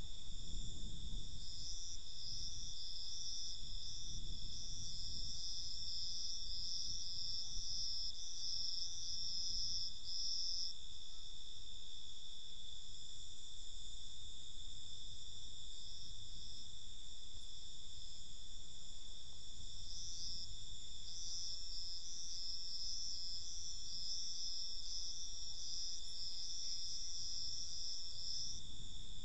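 Night insects trilling, a steady high-pitched drone with a faster, pulsing chirp just above it that comes in twice for several seconds at a time.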